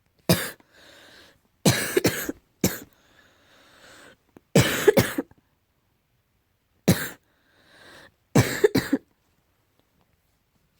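A person coughing in short fits of one to three sharp dry coughs, about six fits in all, with fainter breaths drawn in between. It is an allergy cough.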